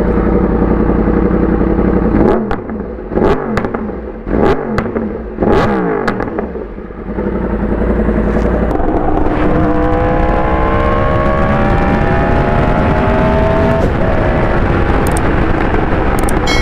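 Yamaha R1 inline-four engine idling, then revved in several sharp throttle blips, with pops and bangs from the exhaust as the revs fall after each. It then pulls away, its pitch climbing steadily, with a gear change near the end.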